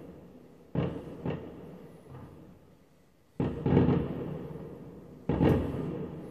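Aerial firework shells bursting at a distance: four sharp bangs, the last two the loudest, each trailing off in a long rumbling echo.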